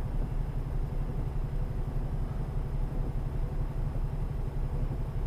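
Mercedes-Benz Antos 1824 lorry's six-cylinder diesel idling steadily while the truck waits, a constant low hum with no revving.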